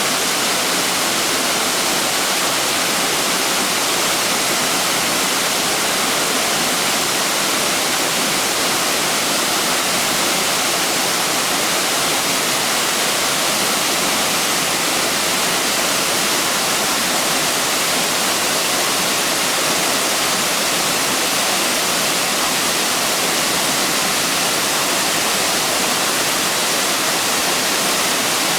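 Waterfall pouring, a constant bright rushing hiss that holds steady throughout.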